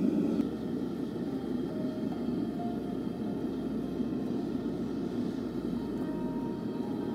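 Propane furnace burner running steadily, melting a large charge of copper. The level dips slightly about half a second in.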